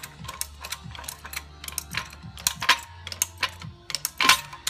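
Hydraulic floor jack being set under the car and worked, giving a quick, irregular run of sharp metal clicks and clacks. The loudest clack comes near the end.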